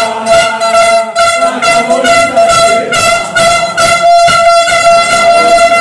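Handheld air horn sounding one long unbroken blast, with rhythmic knocks about three a second underneath.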